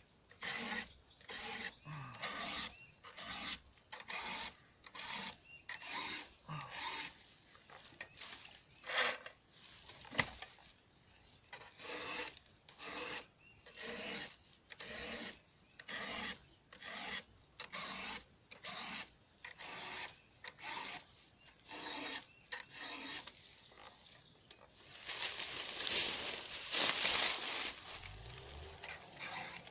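A round file rasping through the cutting teeth of a chainsaw chisel chain, in short strokes at a little over one a second, each pushed straight through and lifted. Near the end comes a louder hiss lasting about three seconds.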